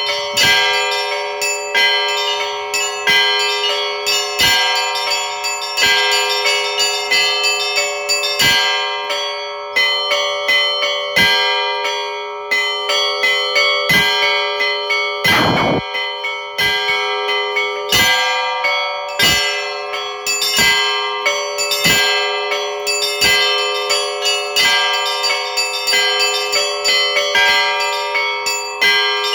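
Russian Orthodox church bells rung by a bell-ringer (zvon): quick, irregular clapper strikes several times a second over a continuous wash of overlapping ringing tones.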